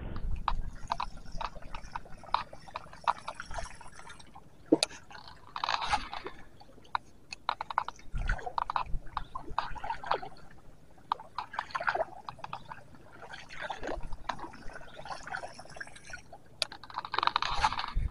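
A buzzbait topwater lure being retrieved across calm water: irregular gurgling and splashing in patches, with scattered sharp clicks throughout.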